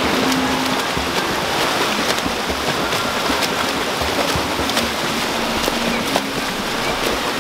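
Several swimmers sprinting freestyle in an indoor pool: a steady wash of churning, splashing water from arm strokes and kicks.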